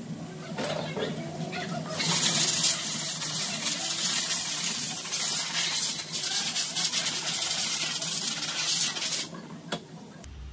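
Transmission parts being sprayed down for cleaning: a steady hissing spray that starts about two seconds in and cuts off sharply near the end.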